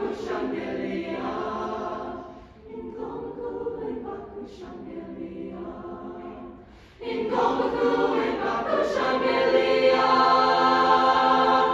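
High school choir singing sustained chords. The singing is softer for a few seconds in the middle, then swells loud again about seven seconds in.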